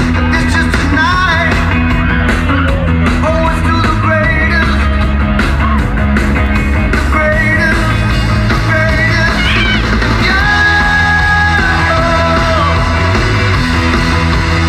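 Loud rock music with a singer over a steady bass line.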